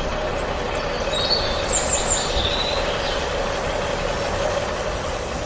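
Small electric motor of a miniature model machine running steadily, a constant hum over a gritty rumble.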